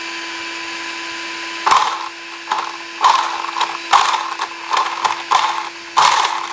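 Rlaarlo AK-787's twin brushless motors driving the drivetrain in short throttle blips, about seven bursts of mechanical whirring over a steady hum. The owner traced the noise the car made to a bent motor shaft throwing the left pinion out of true.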